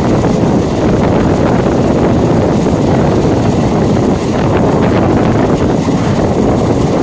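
Steady loud running noise of an EMU local train heard on board, with wind buffeting the microphone.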